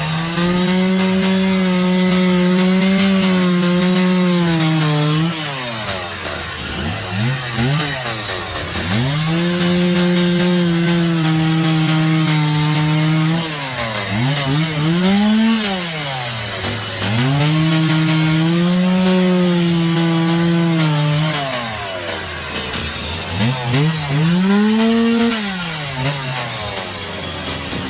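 Chainsaw cutting wood: the engine runs at a steady high pitch through three long cuts of about four seconds each. Between cuts it drops back and is revved up and down in short blips.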